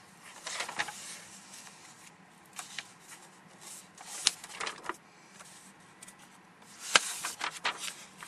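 Felt-tip marker drawn across paper in a series of short scratchy strokes as words are underlined, with two sharp taps on the page, about four seconds in and again about seven seconds in.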